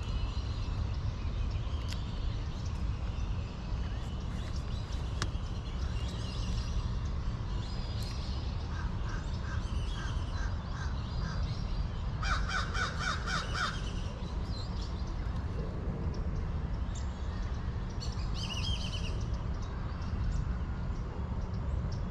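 Crows cawing in short series of rapid, harsh calls, the loudest run about halfway through, over a steady low rumble.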